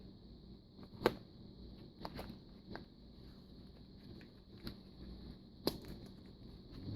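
Small handling noises from working the foam, stylus and rubber grip by hand: a few light clicks and taps, the sharpest about a second in and again near the end, over a faint steady hum.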